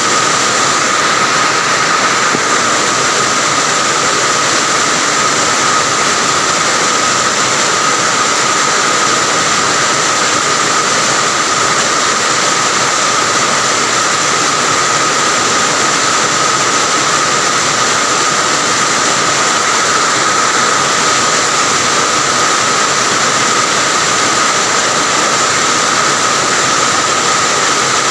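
Steady, heavy rain falling by a roadside, heard from a house terrace as an even, unbroken hiss, with a steady high tone running through it.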